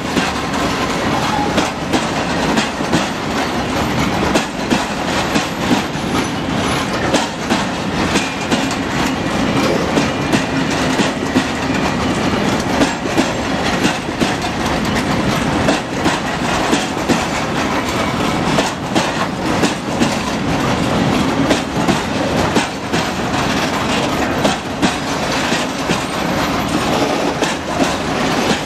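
Freight train of open coal wagons rolling past at a steady speed. The wheels clatter over rail joints in a constant run of clicks over a steady rolling rumble.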